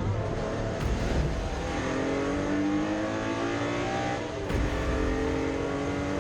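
Porsche 964's air-cooled flat-six race engine pulling hard under acceleration, its pitch climbing steadily. It dips briefly about four seconds in as it shifts up, then climbs again.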